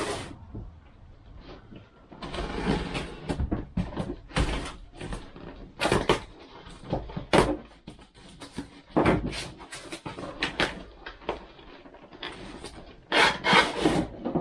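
Cardboard carton being handled and opened: card rustling and scraping as flaps are worked open, with repeated knocks and taps against the box.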